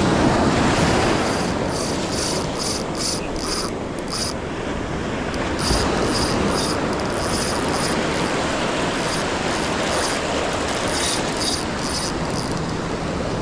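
Steady wash of beach surf with wind on the microphone, broken by runs of short scratchy ticks, about three a second.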